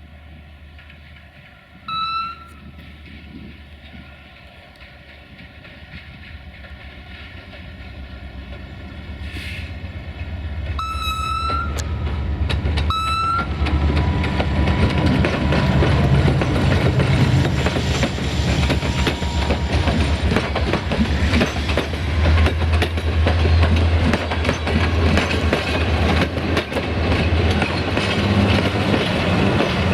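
A diesel-hauled passenger train approaches and passes, its low engine rumble and wheel clatter building up and then staying loud. Three short horn toots sound: one about two seconds in, then two in quick succession a little before halfway.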